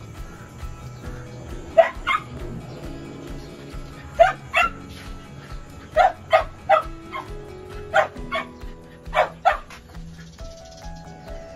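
A dog barking in short, sharp barks, mostly in quick pairs, about a dozen in all, over background music.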